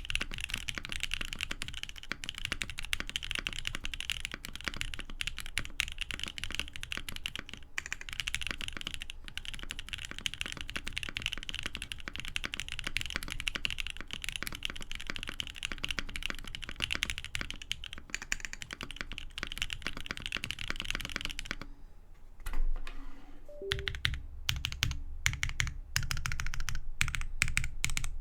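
Typing on a polycarbonate-case mechanical keyboard with an FR4 plate, lubed cream-stem, ink-housing switches and GMK keycaps: rapid continuous keystrokes. About 22 s in the typing pauses with a brief low thump, then resumes as slower, separate keystrokes that grow louder near the end.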